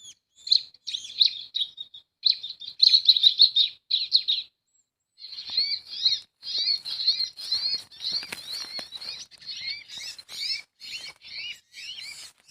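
Cinereous tits (gelatik batu) chirping in quick repeated bursts of high notes. After a short pause about four and a half seconds in, the chirping comes back denser and continuous, mixed with fluttering and rustling.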